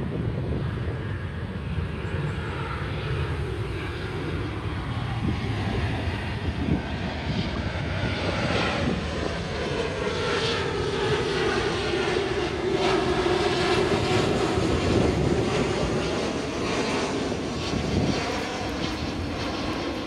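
Boeing 737-800 jet airliner's twin CFM56-7B turbofans on final approach, passing low overhead: a steady jet rumble that swells to its loudest about fourteen seconds in, with a humming tone that slides down in pitch as the plane goes by.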